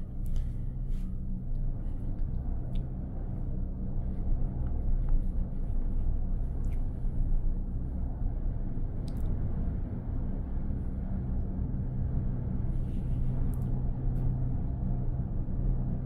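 Gondola lift cabin riding up the cable: a steady low rumble and hum inside the cabin, with a few faint clicks.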